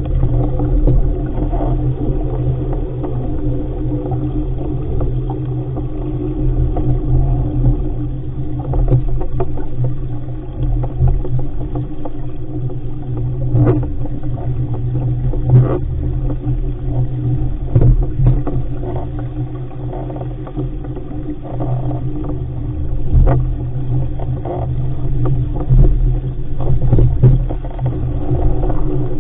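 Wind and rushing water on an RS500 sailing dinghy moving fast through chop: a steady, gusting low rumble of wind on the microphone and water along the hull, broken by a few sharp knocks of waves slapping the hull.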